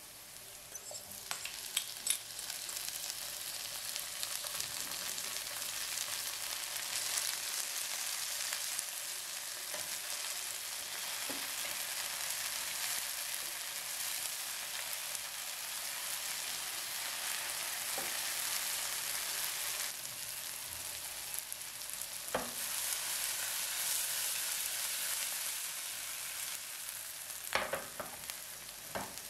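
Sliced onion, green chillies and chopped tomato sizzling in hot oil in a non-stick frying pan while being stirred with a spatula. The sizzle swells about a second in, and the spatula clicks against the pan a few times, mostly near the end.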